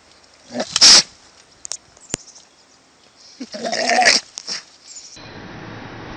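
An animal calling: a loud, harsh cry about half a second in, then a shorter pitched call near four seconds.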